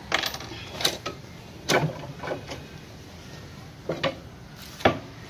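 Knocks and rattles from a wooden-framed wire-mesh cage being handled at its door, about five separate clunks a second or so apart.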